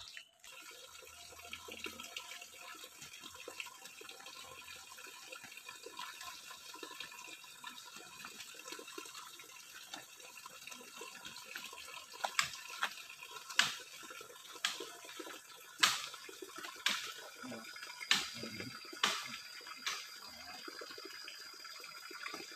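Stream water running with a steady rush. From about halfway through, sharp knocks come roughly once a second, and a thin high whistle joins near the end.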